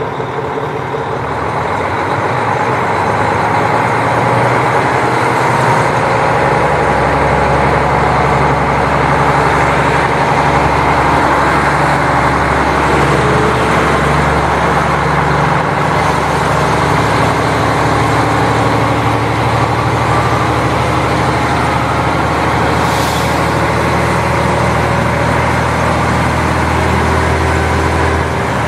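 KiHa 40 diesel railcar under way: its diesel engine drones steadily, swelling over the first few seconds and then holding, over the rumble of the wheels on the rails. A short high hiss comes about two thirds of the way through.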